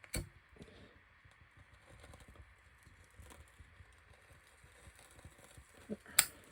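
Two sharp clicks, one right at the start and one near the end, with faint small ticks between, as a homemade candle-wax fire starter is being lit.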